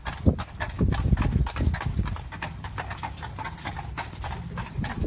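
A carriage horse's hooves clip-clopping at a walk on cobblestones, over the low rumble of the wagon rolling along, heard from inside the canopied wagon. The hoof knocks are loudest in the first couple of seconds and then grow quieter.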